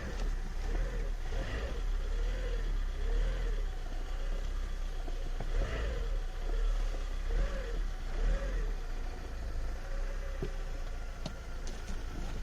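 Citroën BX 14 RE's four-cylinder petrol engine running under a heavy low rumble, its note rising and falling about once a second.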